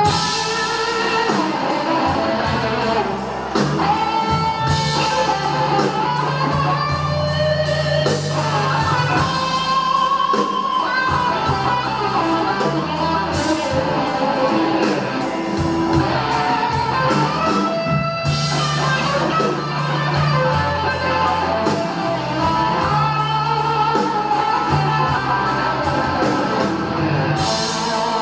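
Live blues-rock band: an electric guitar playing a lead line with bent, sliding notes over bass and drums.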